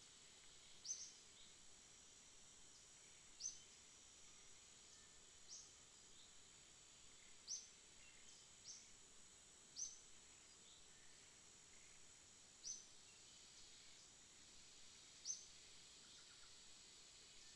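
Faint outdoor ambience: a steady high insect hum with short, high bird chirps repeating every one to three seconds.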